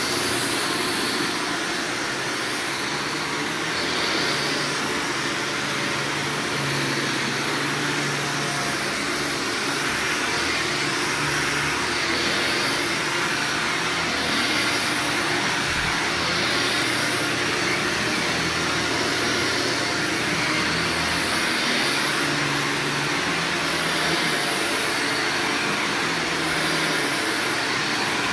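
Upright vacuum cleaner running steadily as it is pushed over carpet, a constant motor hum and suction hiss.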